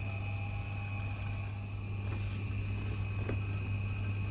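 A steady low machine hum with a faint, steady high-pitched whine above it, and a couple of faint clicks about two and three seconds in.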